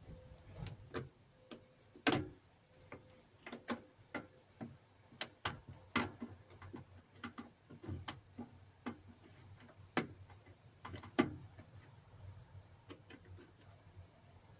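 Scattered small metallic clicks and clinks of hand tools working a nut and Allen bolt loose, irregularly spaced, with a few louder clicks about two, six, ten and eleven seconds in.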